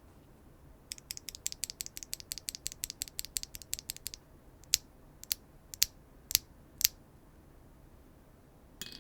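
Tess 65 mechanical keyboard with HMX Sprite linear switches on a polypropylene plate, no foam, and GMK keycaps being typed on: a fast run of keystrokes for about three seconds, then five slower, louder single presses about half a second apart, and a brief clatter near the end.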